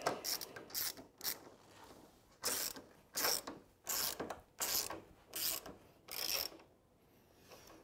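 A jack under a motorcycle frame being worked in even mechanical strokes, about six of them a little under a second apart, raising the frame just enough to take the weight off the rear wheel.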